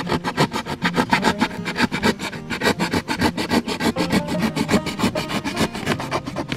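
Utility knife sawing through corrugated cardboard in rapid, even back-and-forth strokes that stop near the end, over background music.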